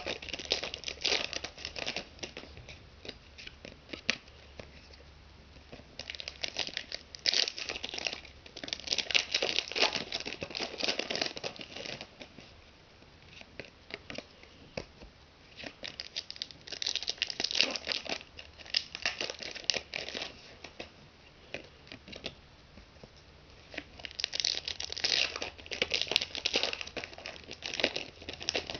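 2009 Select AFL Champions foil card packets crinkling and being torn open, with the trading cards handled between, in spells of a few seconds with quieter pauses.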